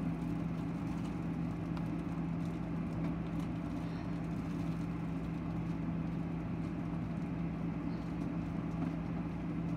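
A steady low hum with one constant droning tone, from a machine or appliance running in the room, with faint rustles and small clicks from a plush toy being handled.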